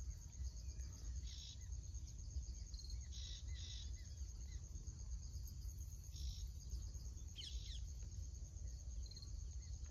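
Insects chirping steadily in a fast, high, pulsing trill, with a few short bird calls, over a faint low rumble.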